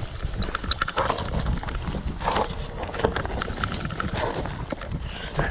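Mountain bike descending a natural trail: tyres crunching and the bike rattling in a run of sharp, irregular knocks, over heavy wind rumble on the microphone.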